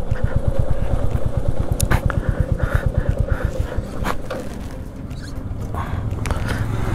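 Motorcycle engine running with a steady low thumping beat as the bike rolls slowly over a rough gravel road, with a few sharp knocks from the rough surface. The beat smooths into a steadier, louder rumble near the end.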